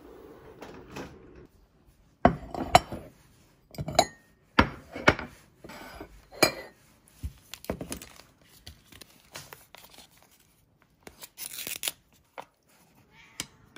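Ceramic cat food bowls knocking and clinking on a stone countertop, a series of sharp strikes, then a cat-food pouch torn open near the end.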